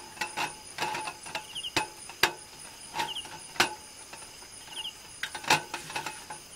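Night chorus of crickets: a steady high ringing with short three-pulse chirps every second or two. Over it, a run of sharp clicks and knocks from things handled on a camp table, the loudest about two, three and a half and five and a half seconds in.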